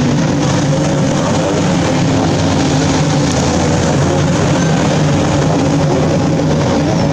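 Outboard motors of Thundercat racing boats running flat out, a loud, steady engine note over a constant hiss.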